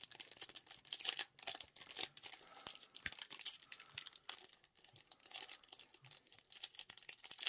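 Foil wrapper of a Pokémon card booster pack crinkling and being torn open by hand: a faint, irregular run of small crackles and clicks.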